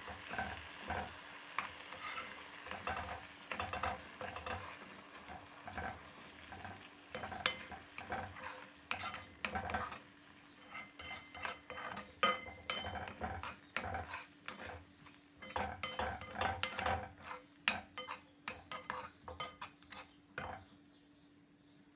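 A metal spoon scraping and clicking against a small frying pan as eggs are scrambled in it, with the eggs sizzling. The sizzle is strongest in the first few seconds; the spoon strokes come thick and fast through the middle and stop shortly before the end.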